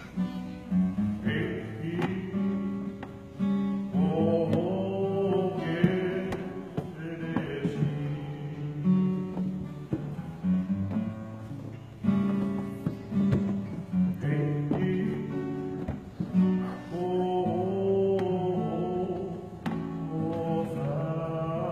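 Tongan kava-circle string-band music: men singing in four-part harmony (bass, baritone, tenor, alto) over a strummed acoustic guitar.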